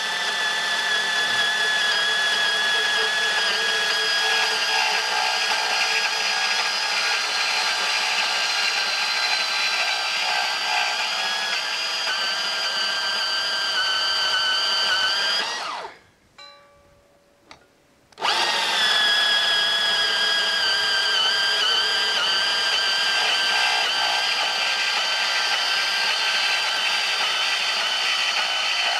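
Makita cordless portable bandsaw running steadily under load as its 8 to 10 teeth-per-inch blade cuts through 2-inch schedule 40 pipe, with a steady motor whine. About halfway through, the motor winds down and stops. After about two seconds it starts again and carries on cutting.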